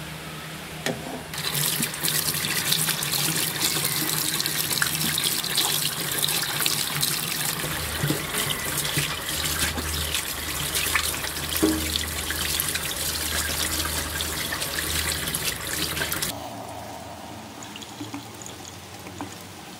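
Tap water running into a stainless steel sink and splashing over a snake's body as it is rinsed and rubbed by hand. The water starts about a second in and stops about three seconds before the end, leaving faint handling sounds.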